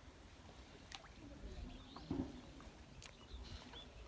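Quiet outdoor ambience: a low rumble with faint high chirps and a few light clicks, and one soft thump about two seconds in.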